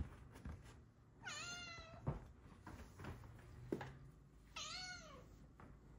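Snow Lynx Bengal cat giving two short, high meows about three seconds apart, each sliding down in pitch at the end, with a couple of soft knocks between them.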